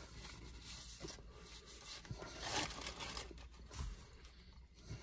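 Faint crinkling and rustling of paper, strongest about two and a half seconds in, with a few soft knocks.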